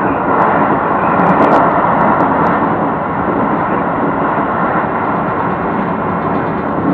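Keio electric train running along the track, heard from the front cab: a steady rumble of wheels on rail, with a few short clicks in the first couple of seconds.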